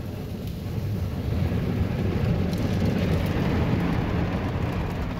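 Ryko SoftGloss MAXX 5 soft-cloth car wash working over the car, heard from inside the cabin: a steady low rumble of water spray and wash cloth sweeping across the windshield and body.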